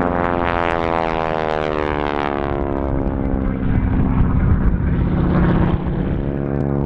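North American Harvard's nine-cylinder radial engine and propeller running loud during aerobatics, the pitch falling steadily over the first couple of seconds as the aircraft passes, then holding steady near the end.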